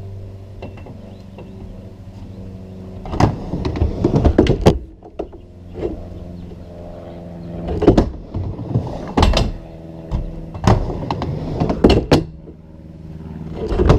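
Skateboard riding back and forth on a backyard half pipe. The wheels rumble steadily, with loud clacks and bangs as the board hits the coping and transitions at each wall. The hits come in a cluster a few seconds in, then about every second and a half.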